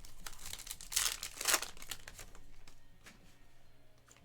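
Plastic wrapper of a Topps Cosmic Chrome basketball card pack being torn open and crinkled, loudest in two crackly rips around one and one and a half seconds in.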